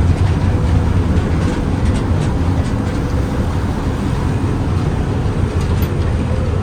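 Ferry engines running steadily while the boat waits at the pier before departure: a loud, even low rumble with a faint steady hum above it.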